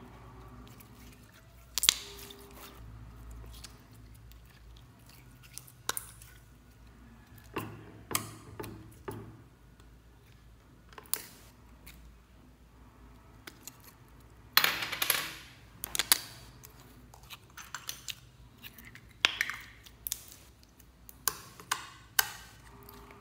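Slime being stretched and squished by hand, with sticky crackles and pops, and sharp clicks of small plastic slime tubs knocking against a glass bowl. The sounds come at irregular moments, with a longer run of crackling a little past halfway.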